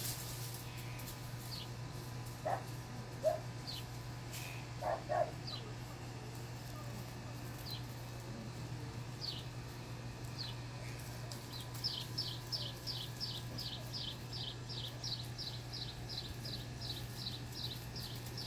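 Dogs barking a few short times, with a bird calling in high, falling chirps that turn into a fast, even run of notes in the second half, over a steady low hum.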